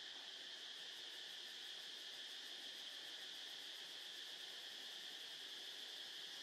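Faint, steady chorus of insects: an even high trill that does not break, with a faster pulsing shimmer above it.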